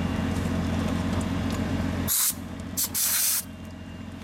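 Compressed air hissing in short bursts from a brass quick-connect coupler as a tire-inflator tool is connected to a pressurized air hose: two sharp spurts, the second longer. Before them a steady low hum runs and cuts off suddenly about two seconds in.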